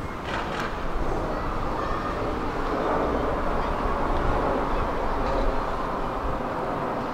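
A passing vehicle: a steady rushing noise that grows louder through the middle and eases off near the end.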